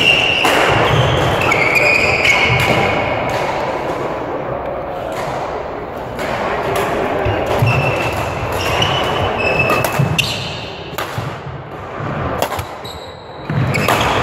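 Badminton play in a sports hall: sharp racket strikes on the shuttlecock and short squeaks of court shoes on the sprung floor, echoing in the hall.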